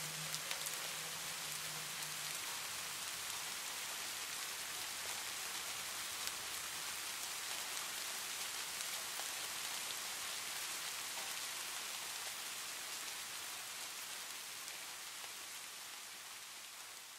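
Steady rain falling, a dense patter of drops, fading down over the last few seconds. A low steady hum runs under it for the first two seconds, then stops.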